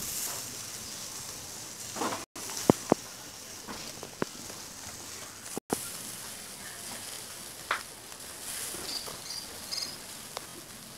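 Chicken on skewers sizzling over a charcoal grill: a steady hiss with a few sharp pops of fat, and some brief high chirps about nine seconds in.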